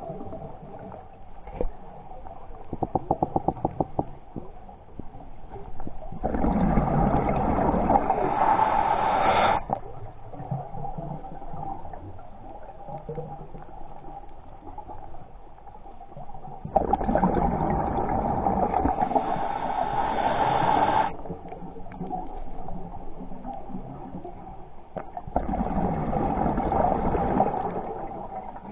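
Underwater bubbling, heard through a camera's underwater housing, coming in three loud surges of three to four seconds each, about nine to ten seconds apart, with quieter water noise between. A quick run of clicks comes about three seconds in.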